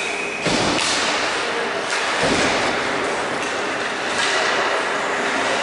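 Ice hockey play in an echoing indoor rink: skates scraping on the ice under several sharp knocks of sticks and puck. The loudest knock comes about half a second in, as the faceoff is taken, and others follow about two seconds in and past three seconds.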